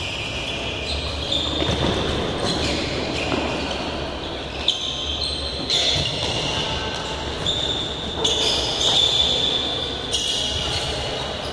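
Indoor futsal game: sneakers squeaking on the court floor and the ball being kicked, with a sharp kick about four and a half seconds in, echoing in a large hall.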